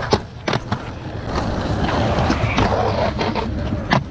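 Skateboard on concrete: a sharp clack of the board against the ledge just after the start and two more soon after, then a stretch of wheels rolling and scraping over the concrete, and another sharp clack near the end.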